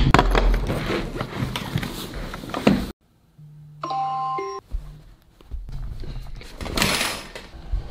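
Mobile phone alarm ringing: a short melody of bell-like chime tones, stepping down in pitch, about four seconds in. It comes between stretches of noisy sound.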